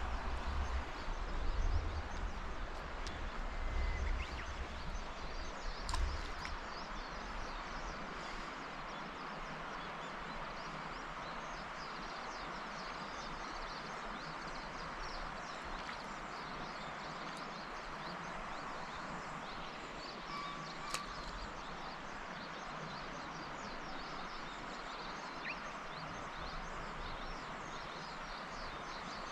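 Steady rush of flowing river water, with low rumbling bumps of wind or handling on the microphone during the first several seconds.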